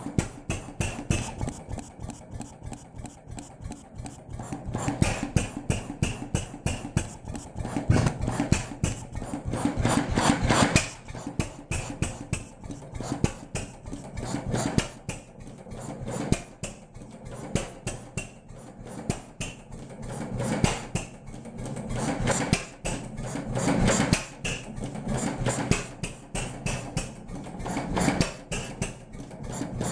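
A 6 hp Cérès M1K series 2 single-cylinder stationary engine of about 1924 running: a fast, even mechanical clatter, with louder surges every few seconds.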